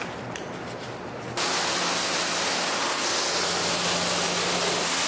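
Pressure washer spraying water onto a car, a steady loud hiss that switches on suddenly about a second and a half in.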